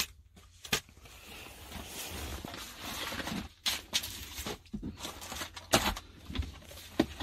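Document folders being handled: paper and plastic folder sleeves rustling and sliding, with several sharp clicks and knocks as the folders are opened and moved.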